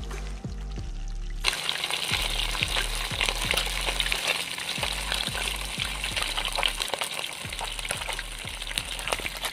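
Whole tilapia frying in hot oil in a pan, a dense sizzling and crackling that starts suddenly about a second and a half in. Background music with a bass beat plays underneath.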